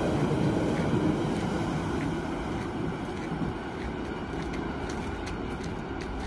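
Berlin S-Bahn electric train running away along the tracks toward a tunnel, a steady rumble of wheels on rail that slowly fades as it recedes.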